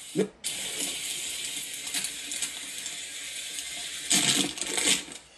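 Water splashing and trickling steadily into a backyard koi pond, briefly louder twice near the end.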